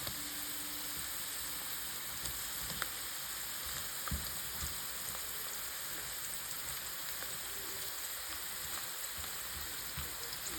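Potato fries deep-frying in hot corn oil in a pan: a steady sizzle with scattered small pops of spitting oil, and a few soft knocks.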